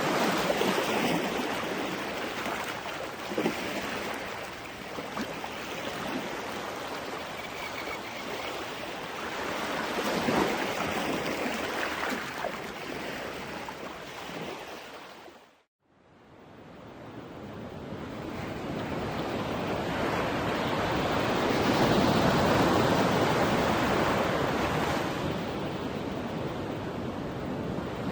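Ocean surf breaking and washing up on a beach, swelling and ebbing every few seconds. About halfway through it fades briefly to silence, then fades back in.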